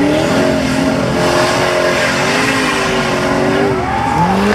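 Formula Offroad buggy's engine revving hard under full load as it climbs a steep dirt hill, its pitch rising and falling again and again, with a quick surge in revs near the end.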